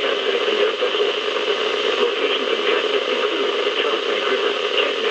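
Weather radio receiver on a NOAA Weather Radio channel with a weak signal, giving a steady hiss of static.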